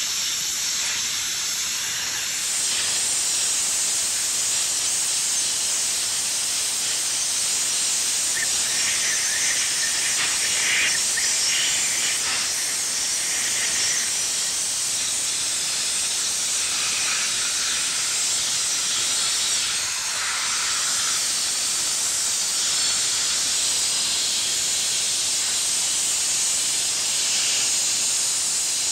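Dry ice blasting gun firing a jet of compressed air and dry ice pellets at engine castings: a loud, steady hiss whose tone shifts a little at times.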